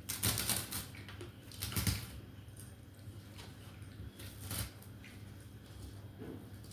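Close-up eating sounds: crunching and chewing food, with three short crackly bursts, the loudest at the start and others about two and four and a half seconds in.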